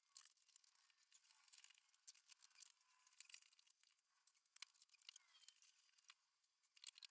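Faint crinkling, crackling and tearing of tape being pulled and handled, with many small irregular clicks and a few short squeaks.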